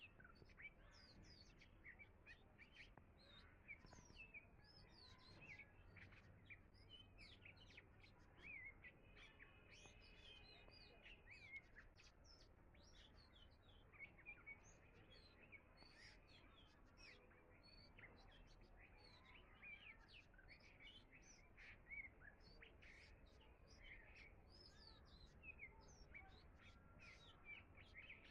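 Faint chorus of many small birds chirping and trilling at once, with short high calls overlapping without a break.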